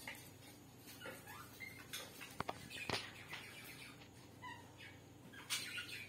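Sun conure biting and chewing a green chilli: faint, irregular crunching clicks from its beak, with two sharper snaps near the middle, and a few faint short chirps.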